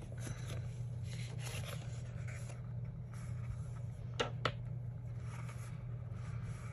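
Paper sticker-book pages rustling and scraping as they are handled, over a steady low hum, with two sharp clicks a fraction of a second apart about four seconds in.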